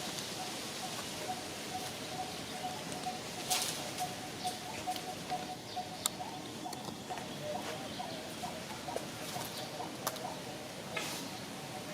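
Small animal chirps repeating rapidly, with scattered sharp clicks.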